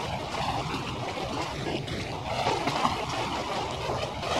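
Harbour background sound with passing boats, played back at five times normal speed: a dense, jittery hiss with no steady tone.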